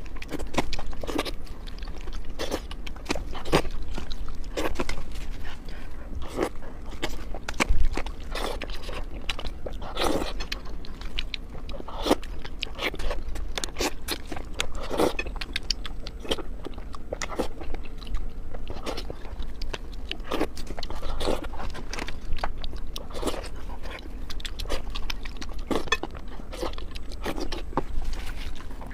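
Close-up eating: a person biting into and chewing crispy fried fish, with repeated crunches and wet mouth sounds in an irregular rhythm.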